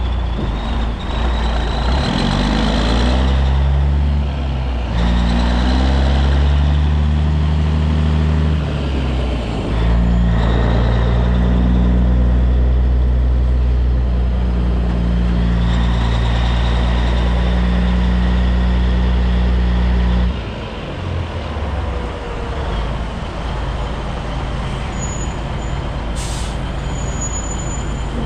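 Cabover Peterbilt 362 semi truck's diesel engine revving up through gear changes as the truck pulls away, then pulling steadily. About twenty seconds in it drops to a lower, idling note as the truck slows. A short air hiss from the air brakes comes near the end.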